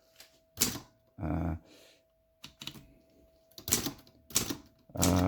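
Manual portable typewriter keys struck one at a time, a handful of separate sharp clacks a second or so apart, with the typebars hitting the platen.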